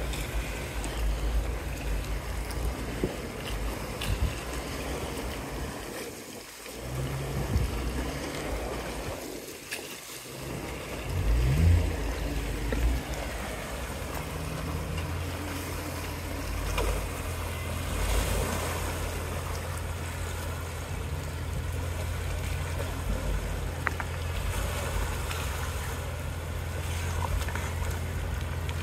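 Jeep Wrangler Unlimited's engine running as it crawls through a muddy, water-filled ditch, water sloshing and splashing around its tyres. The engine briefly revs up about twelve seconds in, then settles into a steady low hum.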